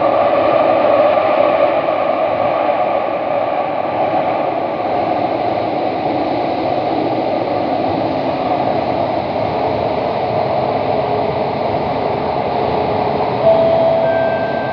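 CT251 metro train running steadily through a tunnel, heard from inside the front car: a continuous rumble and rush of wheels on rail. A short steady tone starts suddenly near the end.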